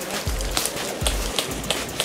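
Background music with a steady, deep beat.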